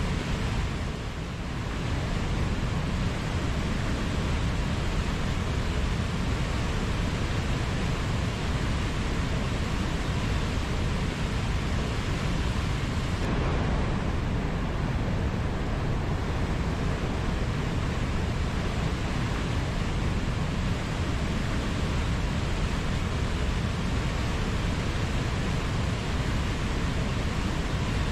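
Mountain waterfall: a steady rush of falling water, with a brief dip about a second in.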